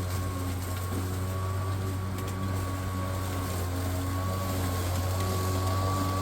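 Greenworks Pro cordless electric lawnmower running steadily while cutting overgrown grass: a constant low hum from the motor and blade with a thin high whine above it.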